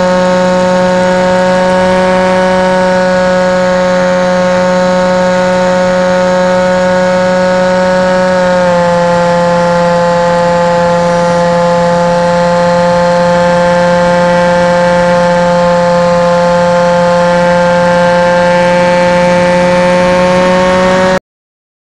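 The motor and propeller of a radio-controlled model plane, heard from a camera on board, running at a steady high-pitched buzz through flight. Its pitch eases down slightly about nine seconds in as the throttle comes back, then creeps up again, and the sound cuts off abruptly near the end.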